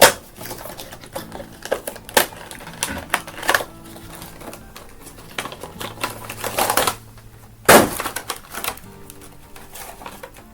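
An action-figure box's cardboard and plastic packaging being handled and opened: irregular clicks, crinkles and tearing, with a loud sharp snap at the start and another about three-quarters through.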